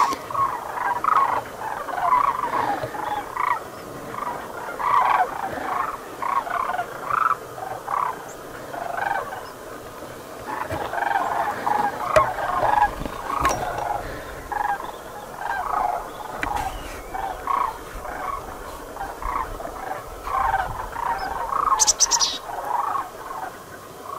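A large flock of sandhill cranes calling in flight overhead: many rolling, rattling calls overlapping into a continuous chorus.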